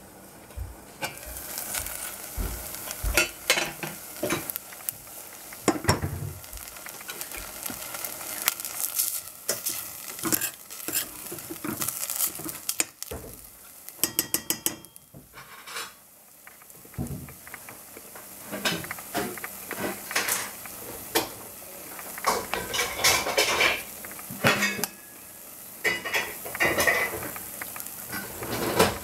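A metal spoon scraping and clinking against a stainless steel saucepan as large grain couscous is stirred, with the grains sizzling in the hot oiled pan. The pan's metal lid is lifted off with a clink.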